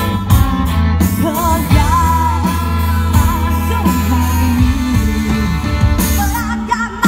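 Live country band playing with a singer: a sung melody with held, wavering notes over guitar and a steady bass line.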